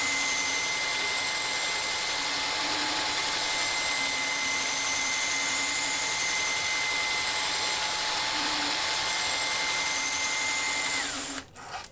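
Flexible-shaft rotary tool running at a steady high speed, spinning a spring-loaded hone inside a model engine cylinder bore, with a steady high whine over the abrasive rasp. Near the end the whine drops in pitch as the tool is switched off and winds down.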